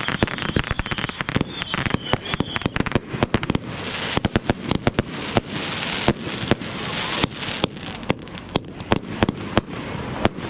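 Consumer fireworks going off: a dense run of rapid bangs and pops all through. A hissing crackle swells in the middle few seconds.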